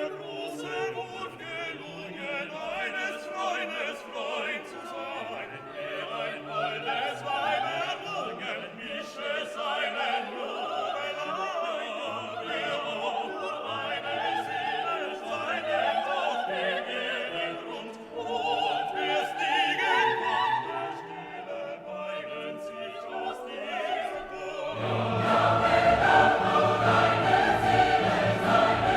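Background music: orchestral and choral music with singing, growing fuller and louder near the end.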